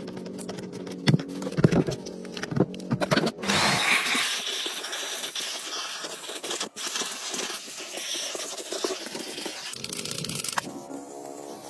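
Background music with sharp clicks and knocks of a socket wrench working a battery terminal clamp. Then the music drops away for a steady hiss of about seven seconds, an aerosol can spraying, and the music returns near the end.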